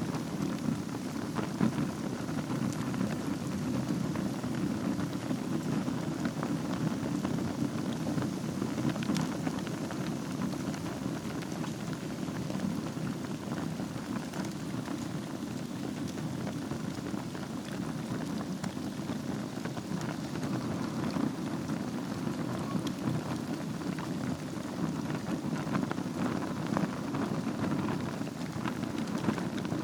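Wood fire burning in a fireplace over glowing embers: a steady low rush of flame with many small scattered crackles and pops.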